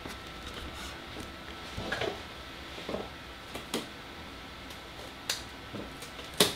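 Faint, scattered clicks and rustles of duct tape being handled and pressed onto a wallet, over a faint steady hum.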